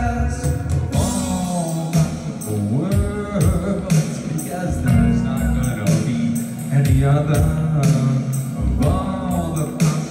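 A live band playing a song, with a singer's voice over the instruments.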